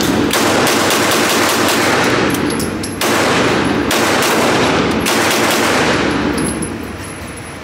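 Rapid gunfire, many shots in quick succession, with a fresh loud run of shots starting about three seconds in and the firing tailing off near the end.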